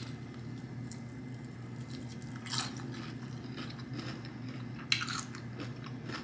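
Someone eating sauce-coated fried chicken up close: three short, separate crackly bites and wet smacks about two and a half seconds apart, the last the loudest, with faint chewing between, over a steady low hum.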